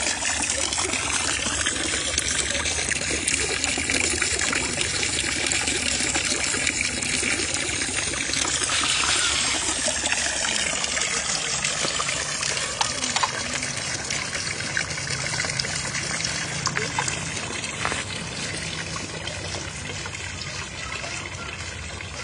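Spring water pouring steadily from a metal spout in a granite wall and splashing below, growing fainter over the last few seconds.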